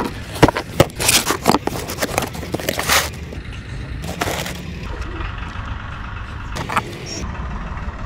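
Cardboard box being handled and opened: sharp knocks and clicks with short rasping scrapes of the cardboard and its flaps through the first three seconds, then quieter rustling with a single click about seven seconds in.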